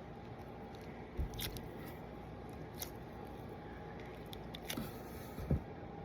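Squishy toy being handled: a few soft rustles and clicks, about a second in and again near the end, over a steady low background hum.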